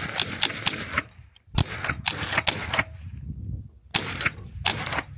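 Suppressed Ruger 10/22 .22 LR semi-automatic rifle firing about five shots, irregularly spaced a second or so apart, each a sharp crack. A faint high ring follows two of the shots, the sound of the steel targets being hit.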